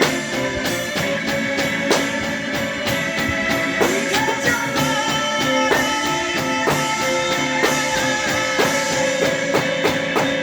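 Drum kit played along to a recorded song with band and vocals, a slow steady beat with an accented hit about once a second.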